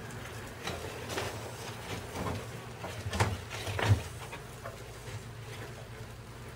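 Short rustles and knocks of cardboard egg crates being handled inside a glass cockroach tank, about five in a few seconds, the loudest two around three and four seconds in.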